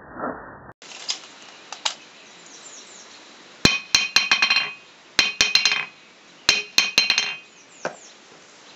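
A 2¼-pound rounding hammer dropped three times onto the face of an old Harbor Freight 55 lb cast iron anvil. Each drop is a bright ringing clink followed by a quick run of smaller bounces that come closer and closer together. The lively bouncing shows good rebound, which the owner finds surprising for a cast iron anvil.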